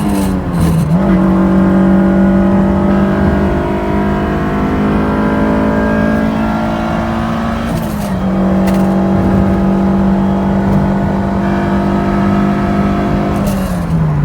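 Honda S2000's four-cylinder engine pulling under way, its pitch climbing slowly and dropping suddenly three times: about half a second in, about eight seconds in and near the end. The owner presents it as the sound of a bad transmission.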